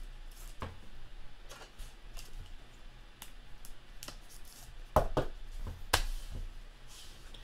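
Trading cards and a clear plastic card sleeve being handled: soft rustling and light clicks as a card is slid out of its sleeve, with two sharper taps about five and six seconds in as cards are set down on the table.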